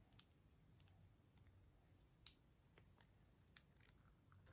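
Near silence, with a few faint, scattered clicks from small plastic toy items being handled.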